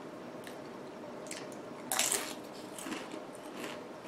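Tortilla chip being bitten and chewed with short crisp crunches, the loudest about two seconds in.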